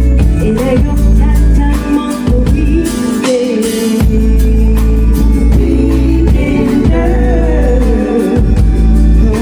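Live R&B/funk band playing a song with heavy bass, steady drums and a sung lead vocal.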